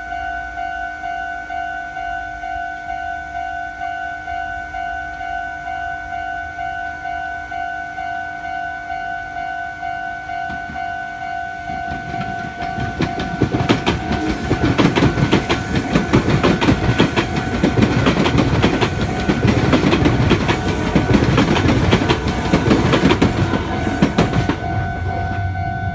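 Japanese level-crossing bell ringing in a steady, repeating ding. About halfway through, a Meitetsu electric train passes over the crossing with loud, rapid wheel clatter on the rails, which stops near the end while the bell keeps ringing.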